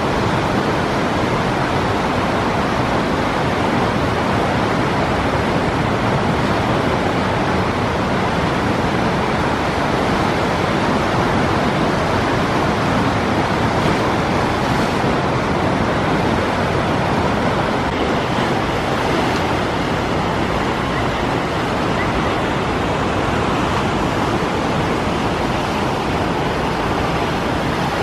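Steady rushing of whitewater churning through the concrete channel of a river rapids raft ride.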